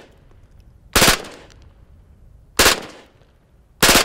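FN P90 submachine gun firing 5.7×28 mm rounds in three short full-auto bursts of a few rounds each, about a second and a half apart. Each burst is followed by a brief echo.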